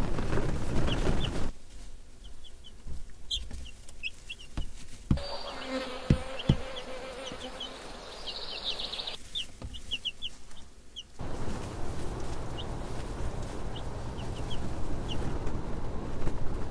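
Outdoor field ambience: small birds give short high chirps over a low rumble of wind on the microphone. The background changes abruptly several times where separate clips are joined, and the rumble is loudest at the start and end.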